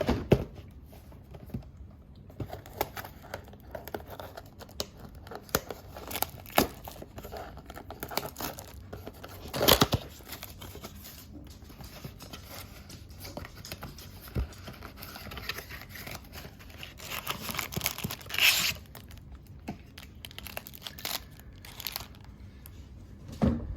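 Plastic trading-card wrappers and packaging crinkling and tearing as used pack wrappers are cleared away and a blaster box is opened, with scattered clicks of handling. There is a sharp rip about ten seconds in and a longer run of tearing and crinkling about three-quarters of the way through.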